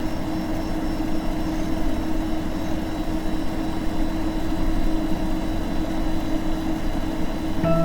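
A loud, steady engine-like rumble with a constant hum, cutting in abruptly out of silence. A few sustained musical tones come in just before the end.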